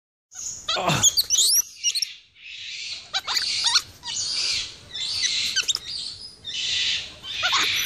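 Capuchin monkey screeching over and over: about six harsh, hissy high screams of roughly a second each, with quick squeaky chirps mixed in, given with bared teeth as it tugs at a finger through a fence.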